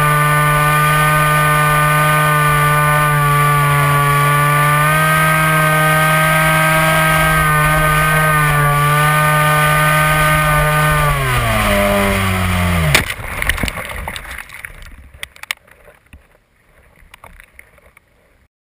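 Electric motor and propeller of a Dynam Hawk Sky RC plane, heard from its onboard camera, whining at a nearly constant pitch. About eleven seconds in the pitch drops steeply as the motor slows, then a sharp crack as the plane hits a tree, followed by a few scattered branch snaps and rustles that die away.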